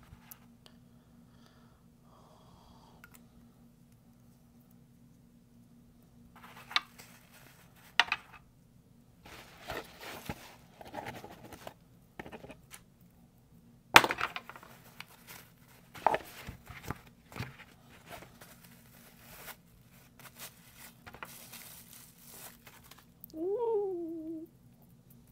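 Small metal fidget toys handled and clicked, with crinkling and rustling of kraft packing paper in several bursts. The loudest click comes about halfway through. Near the end there is a short falling pitched sound, like a drawn-out "wow".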